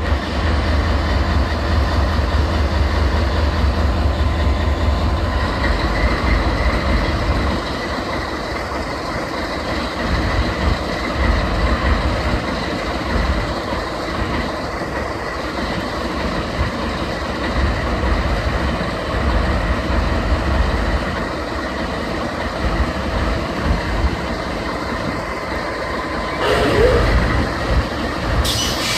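Norfolk Southern GE diesel freight locomotives standing on the track with their engines running: a steady low engine rumble with a faint steady whine above it.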